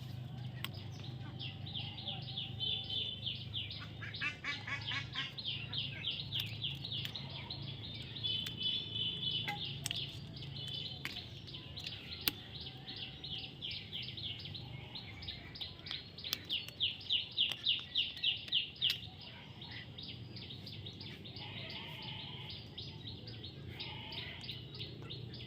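A baby parrot chirping in long runs of rapid, repeated notes. A louder run of about four chirps a second comes roughly two-thirds of the way through. A steady low hum sits underneath.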